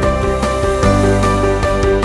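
Background music: steady sustained chords with a soft regular beat.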